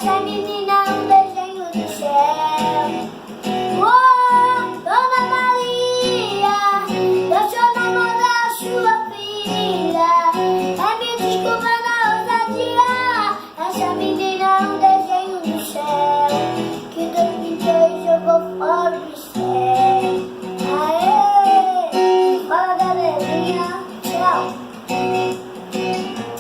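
A young voice singing a sertanejo song in Portuguese, with acoustic guitar accompaniment.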